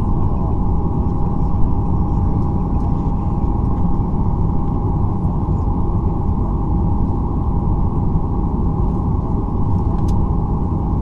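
Steady cabin noise of a Boeing 737-800 taxiing: a loud, even rumble with a constant hum a little under 1 kHz.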